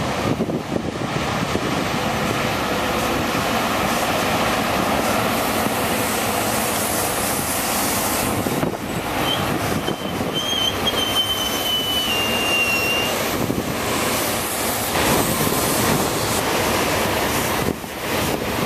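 SEPTA Silverliner IV electric commuter train rolling past, a steady rush of wheels and running gear, with a thin high wheel squeal for a few seconds about halfway through that dips slightly in pitch.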